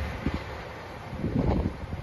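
Wind buffeting the microphone in uneven gusts, while the low rumble of a JR 2700 series diesel train dies away at the start.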